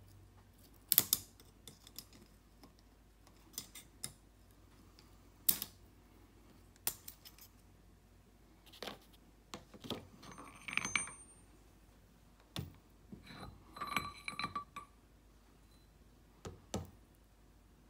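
Scattered metal clicks and clinks as a snap ring is worked off a transmission cluster shaft with snap-ring pliers and steel gears are slid off the shaft and set down on the bench. Twice the metal rings briefly.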